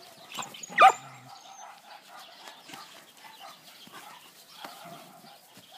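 A puppy's short, sharp yelp about a second in, then faint rough animal noises and rustling as the dogs play.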